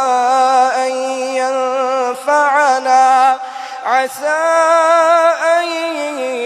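A man chanting Quran recitation in a melodic style, with long held notes and wavering ornaments. He takes a breath about three and a half seconds in, then starts a new phrase.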